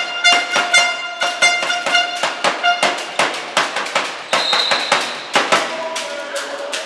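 Handball match in a sports hall: a rapid run of sharp, echoing bangs several times a second, with a steady horn-like tone over the first three seconds. A short high referee's whistle sounds about four and a half seconds in.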